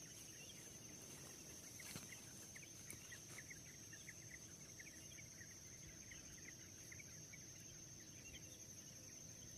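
Faint natural ambience: a steady high-pitched insect drone, with many short chirps scattered throughout.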